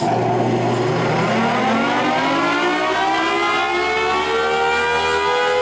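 Federal Signal Thunderbolt 1000T outdoor warning siren switched on and winding up on 120 volts: a loud siren wail that starts abruptly and rises steadily in pitch as the chopper spins up, over a low steady hum.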